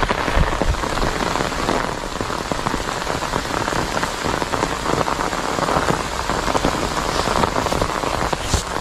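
Steady rain falling, with a dense run of close drops striking.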